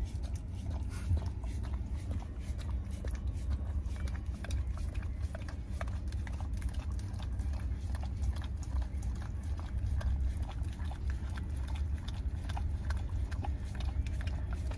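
A dog licking at a frozen ice-cream dog treat: a rapid, irregular run of wet tongue clicks and slurps over a steady low hum.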